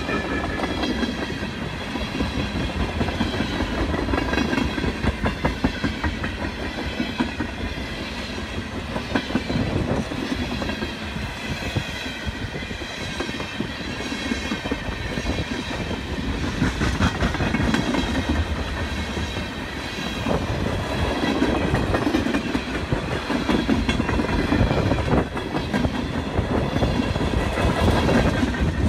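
Freight train of tank cars rolling past close by: steel wheels steadily clicking and rumbling over the rails, with no let-up.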